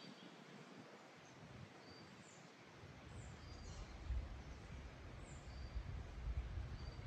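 Woodland birds calling faintly with scattered short, high chirps over a quiet outdoor hush. From about three seconds in, a low, uneven rumble comes in and grows louder.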